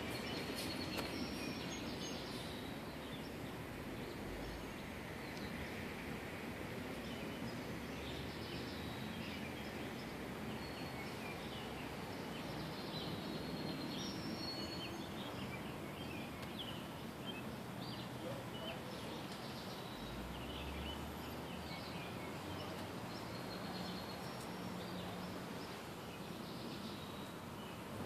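Steady outdoor background noise with scattered short bird chirps throughout.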